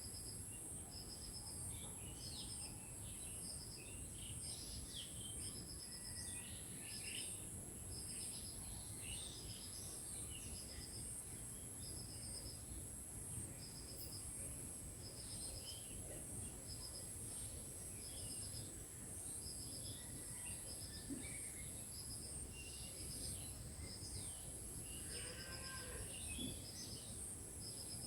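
Steady high insect shrill, with a cricket chirping in short trills about once a second and scattered chirps and calls from several birds.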